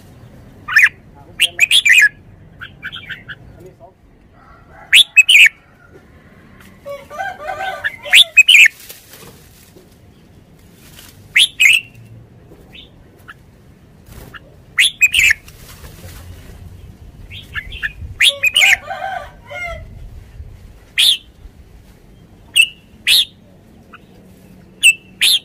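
Red-whiskered bulbul singing in short, bright, sharp bursts with pauses between them, about a dozen in all, with a longer, lower, rougher chatter about eight seconds in and again near nineteen seconds.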